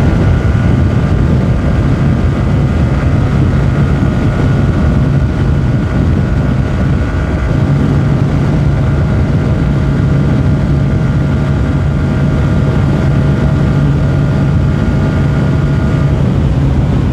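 Yamaha R15 V3's single-cylinder engine running steadily while the motorcycle is ridden, with wind rush over the microphone. The engine note shifts near the end.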